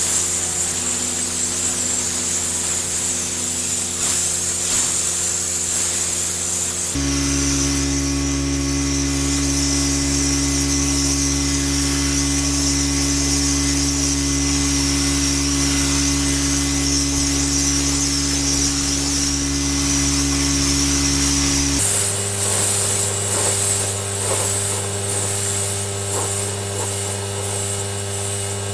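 Pressure washer running: a steady machine drone under the hiss of the water jet, its pitch and tone shifting abruptly about seven seconds in and again near twenty-two seconds.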